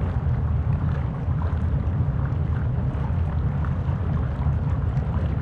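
Volcano eruption sound effect: a steady, deep rumble with scattered small crackles and pops over it.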